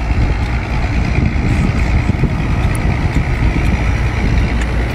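An engine idling with a steady low rumble, with a few faint clicks over it.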